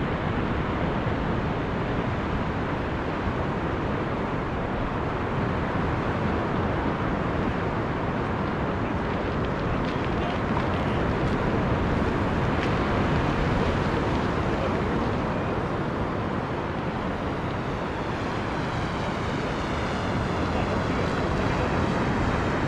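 Steady outdoor rushing of wind and surf, with no distinct events.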